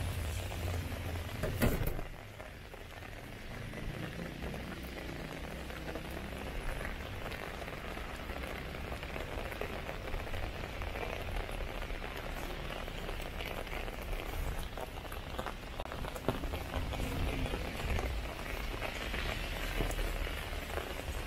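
Rain falling steadily on the street, an even hiss scattered with small drop ticks. A low rumble and a sharp click in the first two seconds drop away about two seconds in.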